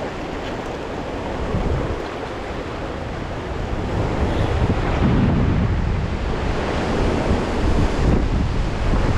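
Strong wind buffeting the microphone over rushing river water, gusting and growing louder as a thunderstorm blows in.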